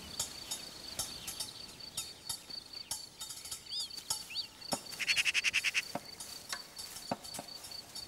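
Cricket trilling steadily in a high, finely pulsing tone. Two faint short chirps come about four seconds in, and a short rapid rattle of about a dozen pulses follows about a second later.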